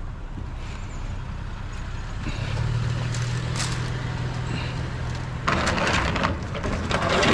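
A steady low engine hum, then from about three quarters of the way in a louder rattling, scraping clatter of metal wire scrap being handled.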